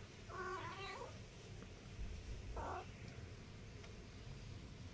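Small kittens meowing: a longer, wavering mew near the start and a shorter one about halfway through.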